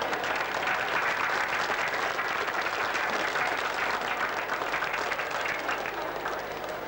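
Audience applauding, many hands clapping together in a dense patter that eases off slightly near the end.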